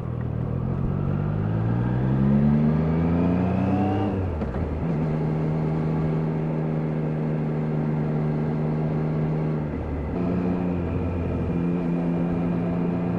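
Triumph Daytona 660's inline-three engine pulling up through the revs for about four seconds. The pitch then drops with an upshift, and the engine holds a steady note at cruising speed, with a brief dip near the end.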